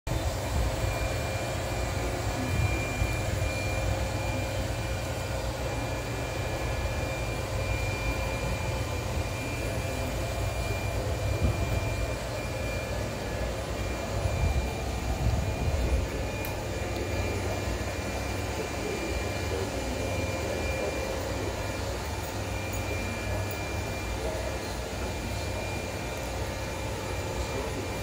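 Robot vacuum cleaner running on a tile floor: a steady motor hum with a thin, constant high whine over a low rumble.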